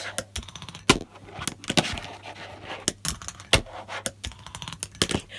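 Fingerboard ridden by hand over a custom fingerboard ramp: its small wheels rolling and the board clacking on the ramp and the desk mat, a run of light clicks with a few sharp clacks.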